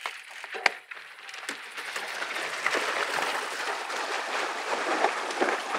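Gravel bikes' wheels splashing through a shallow, stony stream: a dense, steady rush of spray starting about two seconds in, after a few sharp clicks.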